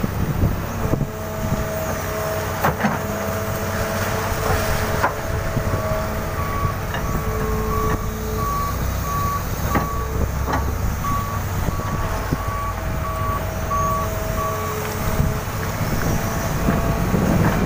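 Diesel engine of an excavator working in mud, running steadily, with a back-up alarm beeping at an even pace for several seconds in the middle and a few sharp knocks.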